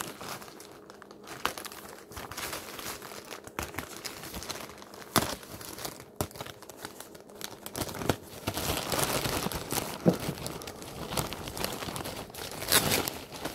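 Packaging being crinkled and torn open by hand: irregular crackling and rustling with sharp clicks, getting busier and louder in the second half.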